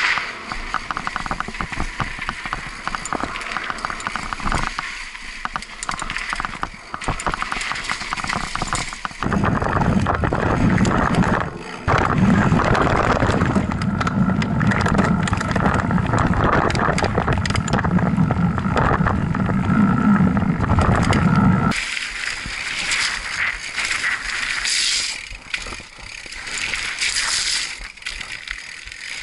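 Mountain bike riding down a dirt downhill trail: tyres rolling and crunching over dirt and gravel, with the bike rattling and clattering over bumps. A heavier, deeper rumble runs through the middle, from about ten to twenty-two seconds in.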